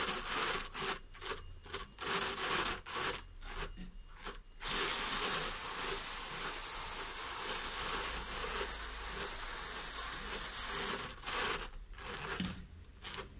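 A hand-cranked drum carder turning, its carding cloth brushing through a layer of blue-faced Leicester wool. There are uneven scraping strokes at first, then a steady hiss from about five seconds in as the drum is cranked continuously, and uneven strokes again near the end.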